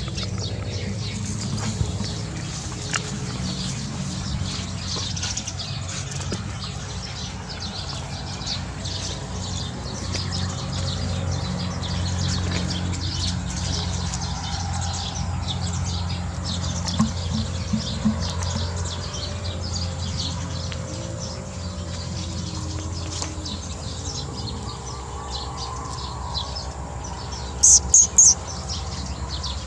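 Birds chirping steadily in the background over a low, even hum. Near the end come three short, sharp, high squeaks in quick succession, the loudest sounds heard.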